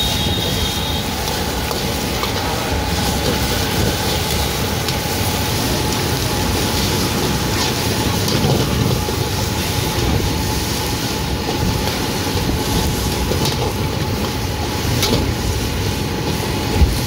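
A metal ladle scraping and knocking in a wok as seafood and meat are stir-fried, over the steady rush of a gas wok burner and sizzling. One sharp knock near the end is the loudest moment.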